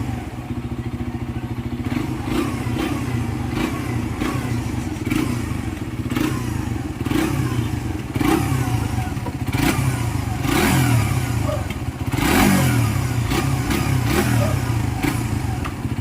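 Suzuki GSX-R150 fuel-injected single-cylinder four-stroke engine running, its throttle blipped several times with the revs rising and falling. It runs without its earlier bearing noise, with a freshly replaced crankshaft bearing.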